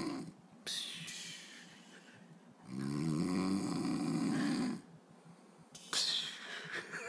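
A man snoring heavily. One long rattling snore of about two seconds comes about three seconds in, with the end of another at the start. A breathy hiss follows each snore, the second one starting with a sudden puff about six seconds in.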